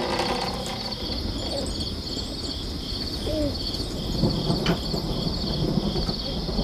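Crickets chirping in a steady, evenly repeating pattern over a low background rumble.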